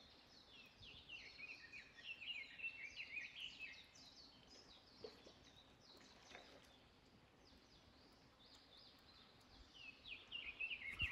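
Faint, quick, high chirping of small birds, a dense run over the first few seconds and again near the end, with a couple of soft knocks in between.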